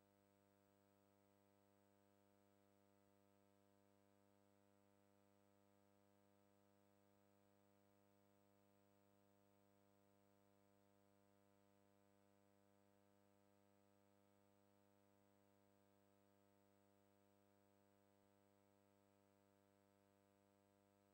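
Near silence: only a faint, unchanging hum with no other sound.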